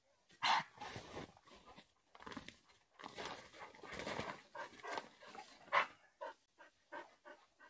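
A dog panting and moving about close by, with rustling. Two short, sharp sounds stand out, about half a second in and just before six seconds.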